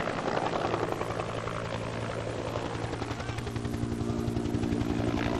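Helicopter passing with a fast, steady rotor chop and engine hum; a steadier whine joins about halfway through.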